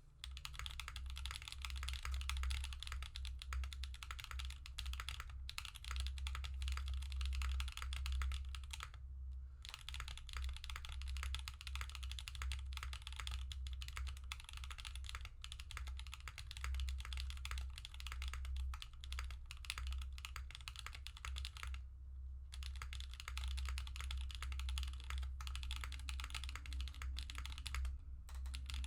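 Fast, steady typing on a mechanical keyboard with factory-lubed Durock Blue Lotus tactile switches, a POM plate, no foam and GMK keycaps. Keystrokes clatter continuously, with brief pauses about nine and twenty-two seconds in.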